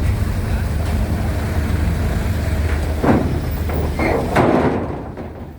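Low steady rumble of heavy vehicle engines, with two loud metallic clanks about three and four and a half seconds in, as of vehicles driving across the ferry's steel ramp; the rumble then fades.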